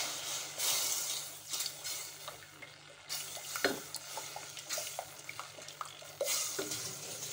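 A spoon stirring hot sugar syrup with dissolved gelatin in a metal saucepan. The spoon gives scattered light clinks and scrapes against the pan.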